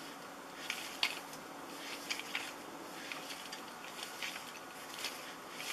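Light, irregular clicks and taps from a wooden whirligig's cam mechanism turning, its figures on wire rods bobbing up and down, over faint room hiss.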